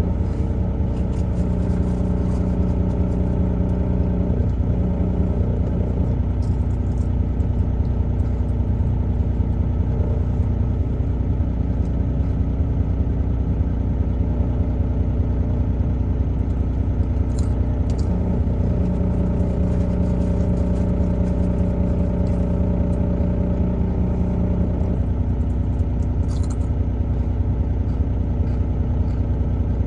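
Truck driving on the road, heard from inside the cab: a steady low engine and road rumble, with a steady engine hum coming in twice, from about a second in to six seconds and again for several seconds in the middle.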